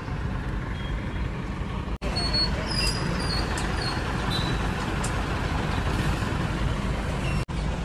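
Vehicle engines running with a steady low rumble, heard from inside a car's cabin, with a few short high squeaks or beeps about two to four seconds in.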